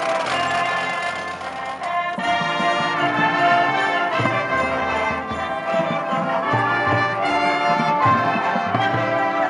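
Brass-led ensemble music: trumpets and trombones playing sustained chords over a moving bass line.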